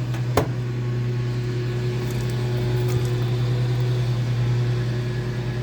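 Microwave oven running with a loud, steady low hum, and a sharp click about half a second in.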